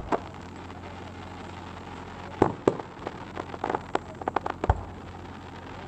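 Aerial fireworks going off: a loud bang about two and a half seconds in, another near the end, and a quick run of crackling pops between them, over a steady low background noise.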